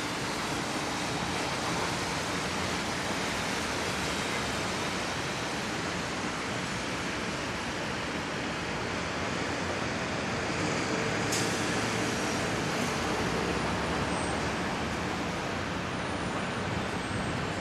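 Steady, even city traffic noise from the streets below, with a brief click a little past the middle.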